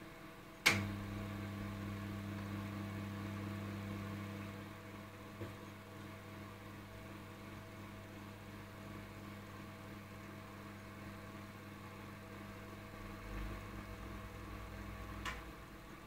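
Microwave oven switching on with a click and running with a steady low hum for about fourteen seconds, then shutting off with another click.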